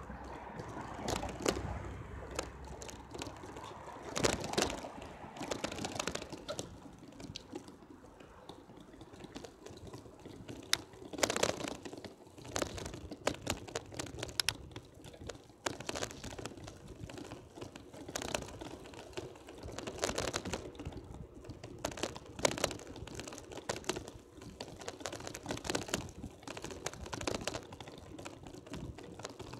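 Irregular rattling and clicking from a bicycle riding over cracked, patched pavement, uneven knocks coming every second or so over a low rumble.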